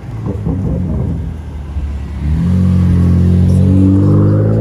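Car engine revving up: after an uneven, choppy first two seconds, its note climbs steadily in pitch.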